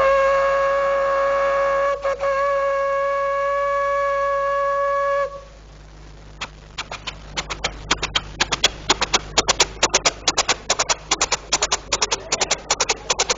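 Coal-fired steam locomotive: a long steady whistle blast with a brief dip about two seconds in, cutting off after about five seconds. Then a rhythmic chuffing that starts slowly and quickens, as the train gets under way.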